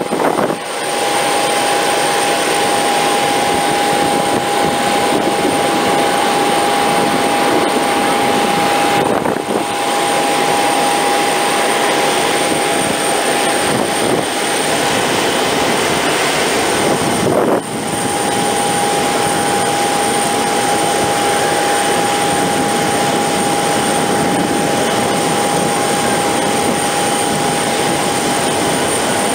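Steady jet aircraft noise on an airport apron: a constant rushing noise with a high, even whine over it, briefly dipping twice where the clips change.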